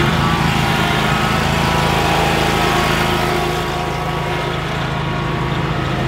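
Engine of an Altoz TSX tracked stand-on mower running steadily as it is driven around, a continuous drone that eases slightly about halfway through.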